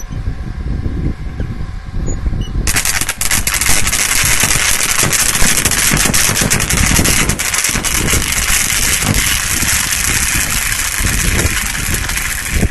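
High-voltage disconnect switch opening under load, drawing an electric arc between its contacts. A low rumble runs throughout, and just under three seconds in a loud, rapid crackling hiss starts suddenly and keeps going.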